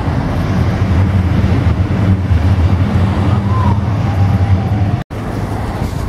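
City street traffic noise: a steady low rumble from road vehicles, with faint voices. The sound drops out briefly about five seconds in and comes back with a weaker rumble.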